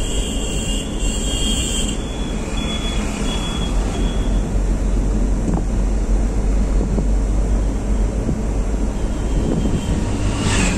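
Steady engine and road noise of a small car heard from inside the cabin while driving at an even speed, with a short hiss near the end.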